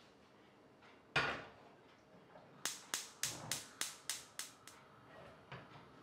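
A stainless pressure cooker set down on a gas hob's cast-iron grate with a single knock, then the hob's spark igniter clicking about eight times, about three a second, as the burner is lit.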